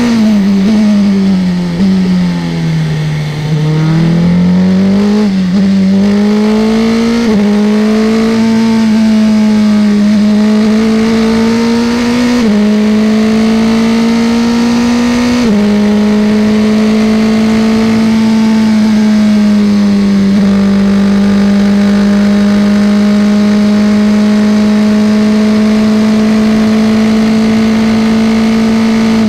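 Formula 3 racing car's engine heard from onboard. The revs fall as the car slows for a corner. They then climb through several upshifts, each a sudden drop in pitch, and hold steady and high at full throttle down a straight.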